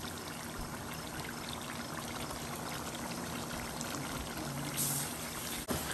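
Pot of rabbit stew simmering on a gas stove: a steady, even hiss of bubbling liquid.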